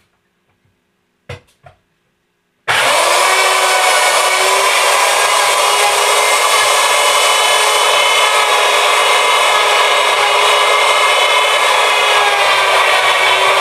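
Two faint clicks, then a handheld router switches on suddenly about two and a half seconds in and runs steadily at full speed. Its half-inch straight bit is cutting a layer out of a black walnut round.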